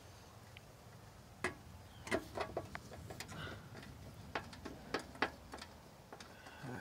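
Light, irregular clicks and ticks of metal being handled as a meter base is held against the wall and a screwdriver is worked at its mounting screw.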